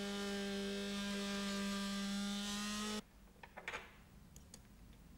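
Electric oscillating special cutter (VAG 1561) running with a steady pitched whine as its short bent knife cuts through the urethane adhesive bead at the lower edge of a rear window. The whine cuts off abruptly about three seconds in, leaving a few faint clicks as the tool and knife are handled.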